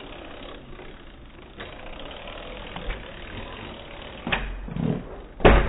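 Oset electric trials bike hopping up onto a concrete ledge: a sharp knock about four seconds in, then a loud thump near the end as the wheels strike the ledge.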